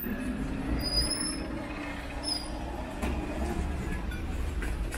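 Busy street ambience: a steady low rumble, with two short high-pitched squeaks, the first about a second in and the second about a second and a half later.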